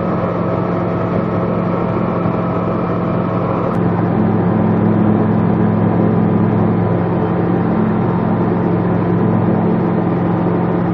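Engine and propeller of a Roko Aero NG-4 light sport aircraft droning steadily in flight, heard inside the cockpit as the plane climbs. About four seconds in the drone jumps slightly louder and changes tone.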